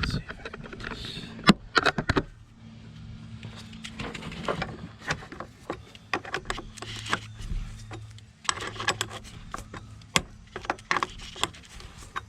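Wrench clinking against the long steel bolt of a car battery hold-down as it is turned and refitted over and over. The result is a run of irregular short metallic clicks and ticks.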